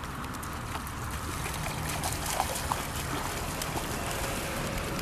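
Shallow water splashing and trickling at the shoreline, with a low wind rumble on the microphone and a few faint clicks.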